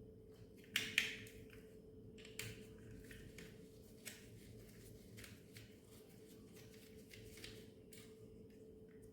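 Small clicks and taps of a plastic toy bulldozer and a small tool being handled during disassembly, with two sharper clicks about a second in. A faint steady hum runs underneath.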